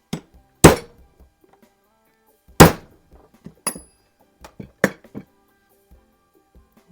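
Small hammer tapping a roll pin into an air pistol's trigger mechanism: two hard metal strikes, then a few lighter taps, one of which rings briefly.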